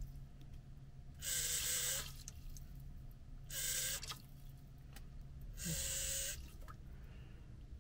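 Water from a tap running in three short spurts into a stainless-steel food-processor bowl, each spurt under a second long, as water is measured in on the machine's scale.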